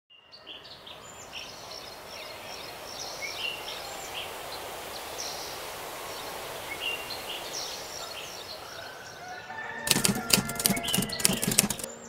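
Many small birds chirping and calling over a steady hiss of open-air ambience. About ten seconds in, a burst of loud, rapid wing flapping, like a flock of birds taking off, runs to the end.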